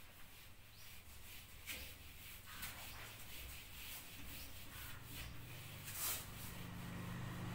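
Whiteboard being erased by hand: soft rubbing strokes across the board, with a few sharper swipes, the loudest about six seconds in. A low steady hum comes in over the second half.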